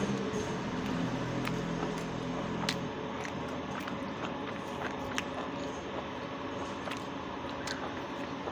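Someone eating a meal: scattered small clicks and chewing over steady background noise, with a low drone in the first few seconds.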